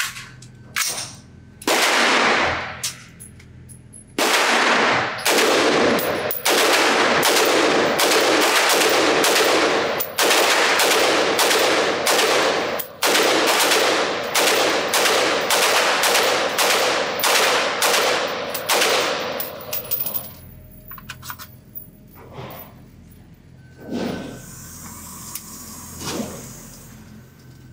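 Noveske Infidel Gen 4 AR-15 rifle in 5.56 firing a magazine of quick single shots, each one echoing off the concrete indoor range. The firing stops about two-thirds of the way through, leaving only a few softer knocks.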